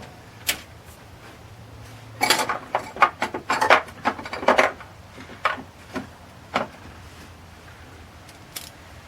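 Metal hand tools clinking and rattling: a burst of quick, irregular clinks from about two to five seconds in, then a few separate single clicks.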